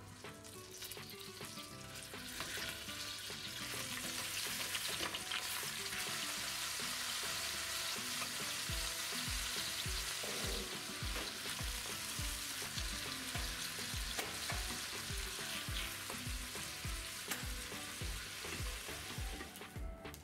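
Boiled chicken pieces sizzling as they fry in butter in a stainless steel pot, with a wooden spoon stirring and turning them.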